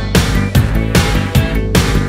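Soundtrack music with a steady fast beat.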